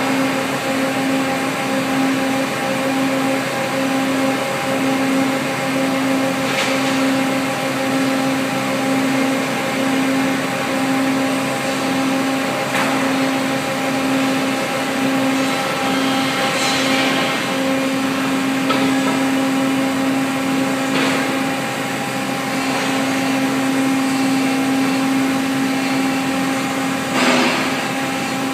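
Industrial machinery running on a production line with a double rollover machine. A steady drone pulses about once a second for the first half, then holds steady, and several short hissing bursts break in over it.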